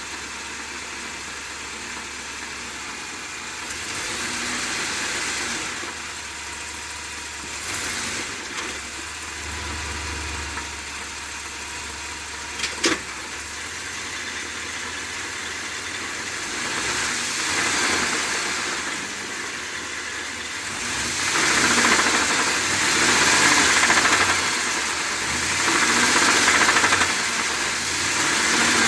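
Ford 7.3L gas V8 running with an abnormal engine noise that persisted after its oil pump was replaced, the night before the engine seized. It runs steadily, with a sharp click about 13 seconds in and louder swells in the second half.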